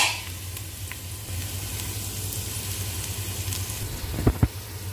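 Chopped onions frying in oil in a pot, a steady sizzle. About four seconds in come two sharp knocks of a wooden spoon against the pot.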